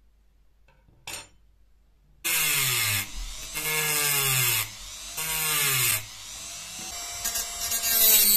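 A handheld rotary tool with a thin cut-off disc cuts through a thin rod, after a single knock about a second in. There are three loud grinding stretches, and in each the motor's whine drops in pitch as the disc bites. Between and after them the tool runs more quietly.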